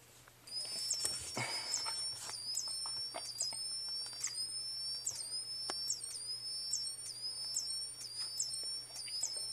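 Two Wheelock ET-1010-WS-24 fire alarm speaker/strobes sounding together, starting about half a second in: a high-pitched electronic tone that sweeps and jumps in pitch in a pattern repeating about twice a second. The two units run slightly out of step with each other.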